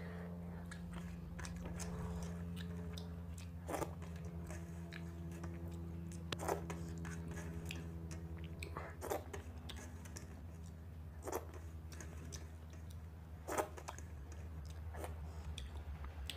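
Wet mouth sounds and smacks of someone eating watery fermented rice (panta bhat) by hand, one every two or three seconds, over the steady low drone of a helicopter.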